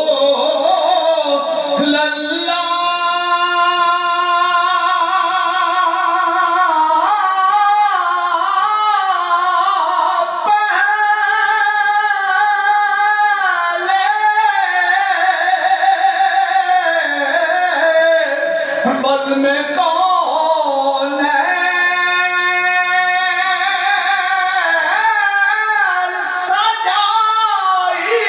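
A man's voice reciting a naat, an Islamic devotional poem, sung into a microphone. He sings long held notes that bend up and down, with brief breaks between lines.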